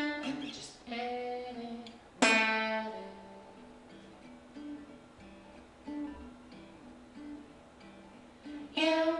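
Acoustic guitar playing: a few loud strummed chords in the first couple of seconds, then softer single picked notes, with a loud strummed chord again near the end.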